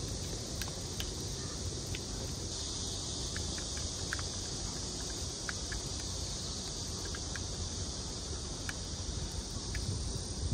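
A steady chorus of insects chirring in a high band, growing stronger a couple of seconds in, over a low rumble of wind on the microphone, with a few faint clicks.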